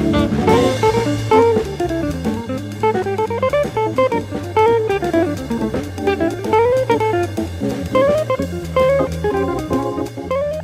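Jazzy instrumental background music: a plucked guitar melody over a bass line and a drum kit.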